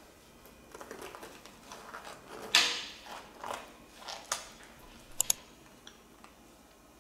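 Knife and fork cutting through a torrija's crisp caramelized sugar crust: a series of scratchy crunches, the loudest a little over two seconds in, then two sharp clinks of metal cutlery on the marble board.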